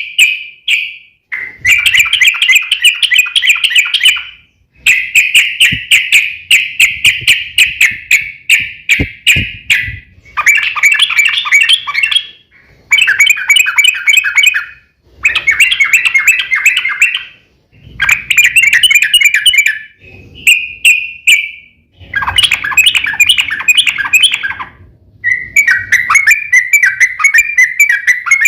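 Yellow-vented bulbul (trucukan) singing: fast, bubbly trilling phrases of rapid notes, each lasting a couple of seconds, repeated again and again with short pauses between.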